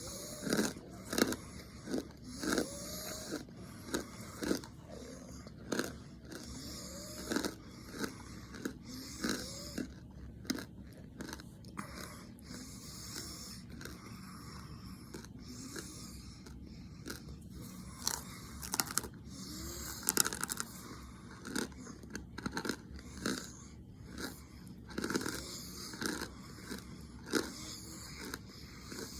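A person chewing a crunchy snack close to the microphone, with irregular crisp crunches every half second or so, and heavy breathing between them.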